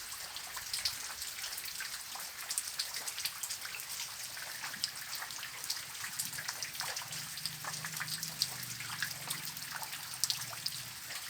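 Rain falling, with many distinct drops striking close by and water trickling. A faint low hum comes in about halfway through and fades near the end.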